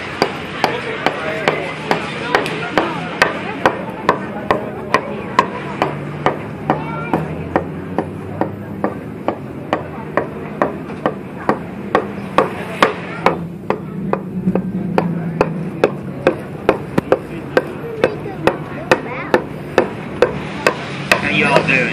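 A hand adze chopping into a green-wood bowl blank, hollowing it out in quick, even strokes, a little over two blows a second. A steady low street hum sits underneath.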